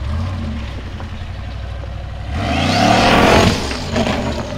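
Formula Offroad buggy's engine revving. It climbs hard about halfway through to a loud full-throttle peak lasting about a second, then backs off.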